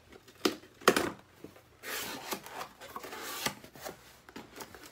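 Packaging being handled while unboxing: a few sharp knocks in the first second, then a couple of seconds of rustling and scraping, with lighter clicks and knocks near the end.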